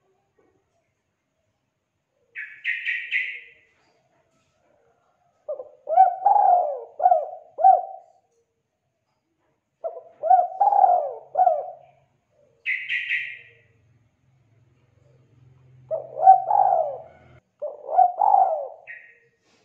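Spotted dove cooing: three phrases of several hoarse coos each. Short bursts of high chirping come in between, about two seconds in, midway and near the end.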